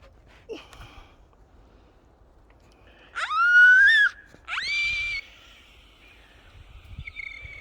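A child's high-pitched squeals: two loud shrieks a little over a second apart, each sweeping up in pitch and then holding, followed by a fainter, steadier high call near the end.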